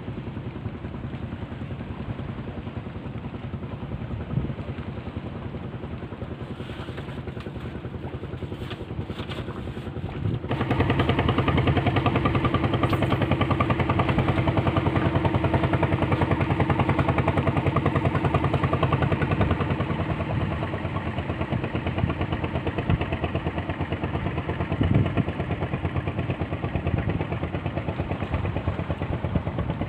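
Small boat engine running steadily, stepping up suddenly in loudness about ten seconds in and easing back a little later on.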